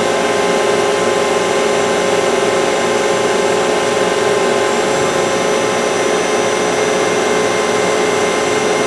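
CNC vertical machining center spindle spinning with the axes moving through an adaptive toolpath, cutting air above the table: a loud, steady machine whine and hiss with a faint high tone joining about five seconds in.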